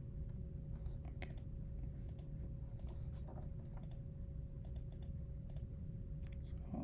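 Irregular, scattered clicks of a computer mouse, about a dozen in a few seconds, over a steady faint hum.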